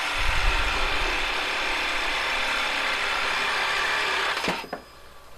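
Reciprocating saw with a bimetal blade cutting through a metal rod held in a lathe chuck, a steady harsh sawing that stops about four and a half seconds in. This is a rough pre-cut at a scored line, to be finished to exact length on the lathe.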